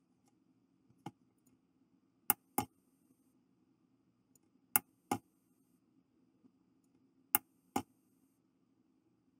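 A stepper motor test rig: sharp clicks in pairs about every two and a half seconds, like a push button pressed and released, over a faint steady low hum from the running setup.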